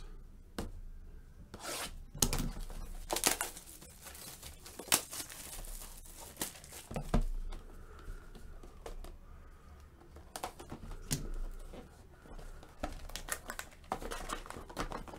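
Plastic shrink-wrap being slit and torn off sealed boxes of baseball cards, crinkling, with scattered clicks and knocks as the cardboard box is opened and the card packs are handled.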